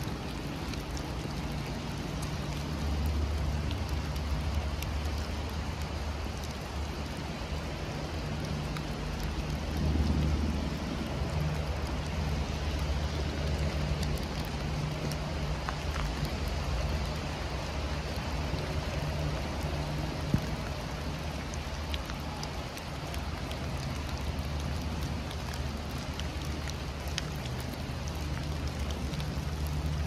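Heavy rain falling: a steady hiss with many single drops ticking through it, over a low rumble. One sharper tick comes about twenty seconds in.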